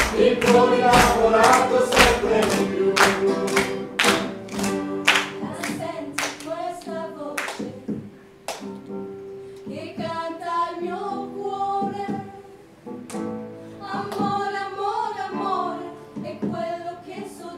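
Several voices singing a song together to an acoustic guitar, with steady rhythmic handclaps keeping time that stop about eight seconds in; the singing and guitar carry on alone after that.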